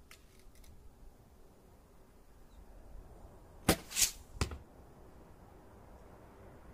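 A Junxing M183 recurve bow being shot: a sharp snap as the string is released, then two more sharp noises close together within about three quarters of a second.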